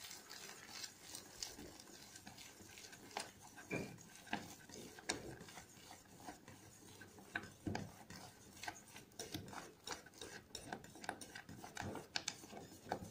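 Wire whisk stirring a thickening milk-based cheese mixture in a steel saucepan, its wires scraping and clicking irregularly against the pan.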